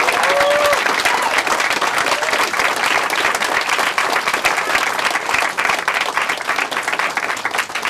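Audience applauding steadily, with a short voice cheer at the very start; the clapping thins a little near the end.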